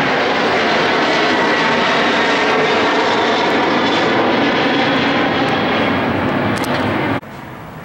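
Loud, steady jet-engine noise of a Boeing 737 airliner climbing overhead. About seven seconds in it cuts off abruptly, leaving a much quieter background.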